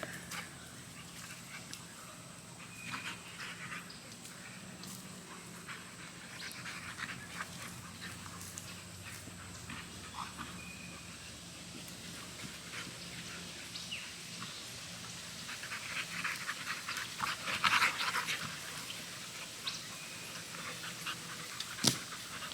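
American Bully dogs panting and moving about, with scattered light clicks and rustles. The panting gets louder for a couple of seconds about 16 to 18 seconds in.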